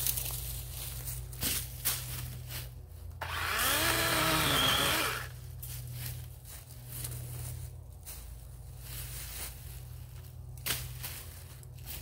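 DeWalt 20V XR cordless electric chainsaw running in one burst of about two seconds, a little over three seconds in, its whine rising and then falling. Scattered sharp clicks and rustles around it.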